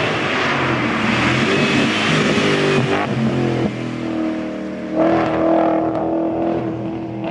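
Saloon race car's engine revving hard as it comes up to and passes a hill-climb bend. The engine note drops in two steps around three seconds in, then comes back louder about five seconds in as the car accelerates away.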